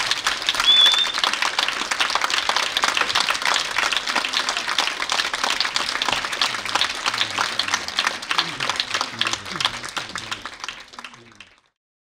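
Audience applauding, with a brief high-pitched tone about a second in; the clapping thins out and fades away near the end.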